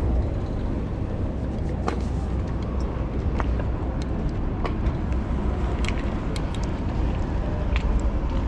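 Wind rumbling on the microphone of a bike rider moving through city car traffic, with scattered light clicks.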